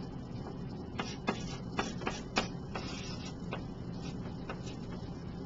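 Handwriting: irregular light ticks and short scratches of a writing tool on the writing surface, roughly one or two a second, over a low steady hum.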